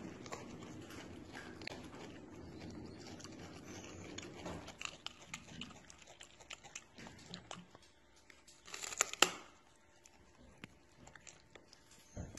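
A monkey chewing and biting food close to the microphone: small wet clicks and crunches. A soft rustle for the first few seconds, and one louder crunching, rustling burst about nine seconds in.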